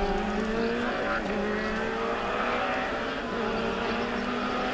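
Rally car engine revving hard as the car approaches at speed, its pitch rising and falling with throttle and gear changes.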